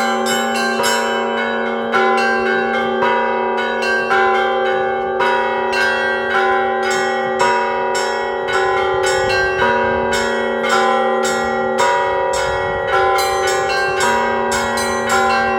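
Orthodox church bells rung together in an ensemble peal: rapid, overlapping strikes on small and middle bells ring over a steady hum from a deeper bell.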